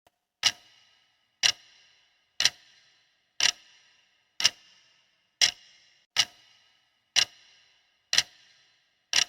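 Clock-tick sound effect counting down a quiz answer timer, about one tick a second, ten ticks in all, each a sharp click with a short ringing tail.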